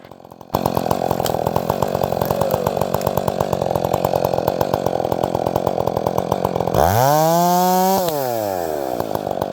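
Two-stroke gas chainsaw idling with an even, rapid putter. About seven seconds in it is revved hard, the pitch climbing quickly, and about a second later it is let back down toward idle.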